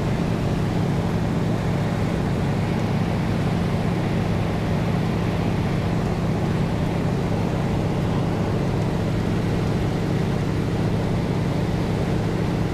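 Steady drone of a T-6 Texan's Pratt & Whitney R-1340 Wasp radial engine and propeller in flight, heard from inside the cockpit.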